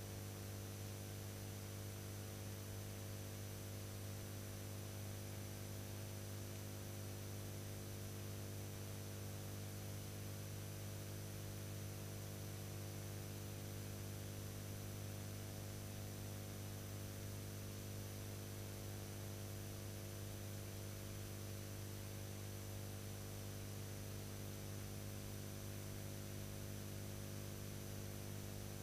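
Steady electrical mains hum with a stack of overtones, over constant hiss and a faint high whine, unchanging throughout: the background noise of a silent film transferred to video, with no other sound.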